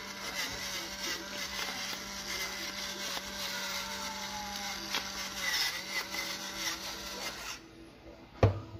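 Electric pepper grinder running steadily as it grinds peppercorns, its motor humming under a gritty crunch, then switching off near the end. A single sharp knock follows just after.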